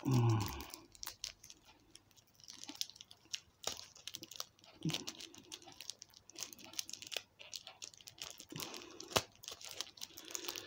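Fingers picking and pulling at a small plastic wrapper, making quiet, intermittent crinkling with faint clicks and small tearing sounds, a struggle to get it open by hand without scissors. A short grunt of voice comes right at the start.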